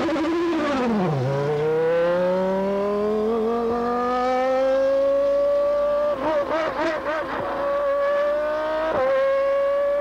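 Stewart SF1 Formula One car's Ford V10 pulling away on its maiden shakedown run: the engine note drops low just after a second in, then climbs steadily for several seconds as the car accelerates. Later the note wavers and dips sharply near the end before rising again.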